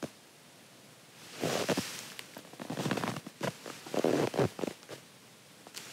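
Rustling of a padded jacket and shuffling in snow as a camera with a long lens is raised and held up to the eye, in a few irregular bursts with small clicks over about three seconds.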